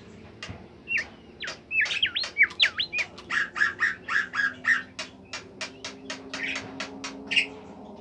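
Bimoli songbird singing a fast, varied song. First comes a run of quick whistled notes that sweep down and up, then a rapid string of short repeated notes, about four a second, ending about seven and a half seconds in.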